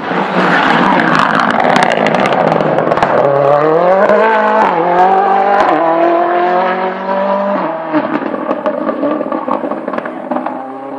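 Rally car passing at full throttle, its engine revving up and changing up through the gears, with the pitch climbing and then dropping twice, before it pulls away and fades.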